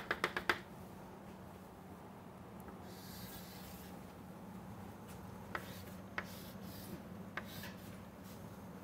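Chalk on a chalkboard, drawing a diagram: a quick run of taps near the start as a dashed line is dotted in, a faint scraping stroke about three seconds in, then a few single taps.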